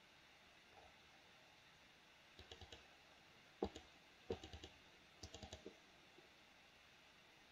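Faint computer mouse clicking: several short runs of quick clicks, from about two and a half to five and a half seconds in.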